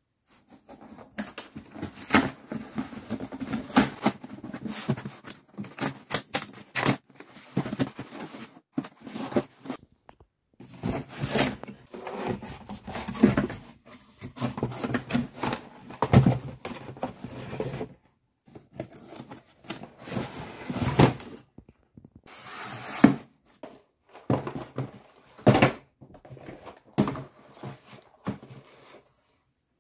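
Cardboard shipping box being opened and unpacked by hand: irregular rustling, scraping and tearing of cardboard, with sharp knocks as cardboard product boxes are pulled out and set down, and a few short pauses.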